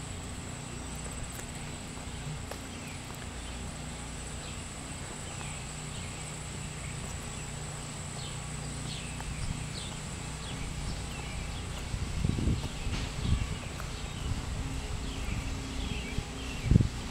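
Footsteps on an asphalt street, with handheld-camera handling, over a steady low hum. Faint short high chirps come in the second half, and a few louder low thumps come late, the loudest just before the end.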